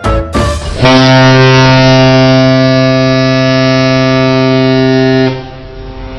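A ship's horn gives one long steady blast of about four and a half seconds, then cuts off and leaves a low background rumble. The last beats of intro music end just before it.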